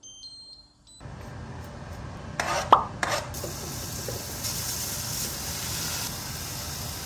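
Minced meat and garlic sizzling in a frying pan, with one sharp clank about three seconds in. The sizzle grows brighter around five to six seconds in, as wet vegetables go into the hot pan.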